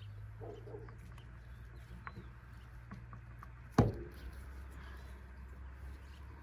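A single sharp knock a little under four seconds in, the loudest thing here, over a low steady hum and a few faint ticks.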